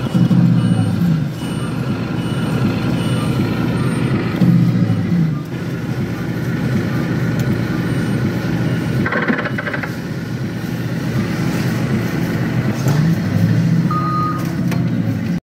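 Claw crane machine in play: a low mechanical hum that rises and falls in pitch a few times as the claw moves, with short repeated electronic beeps over it. The sound cuts off abruptly near the end.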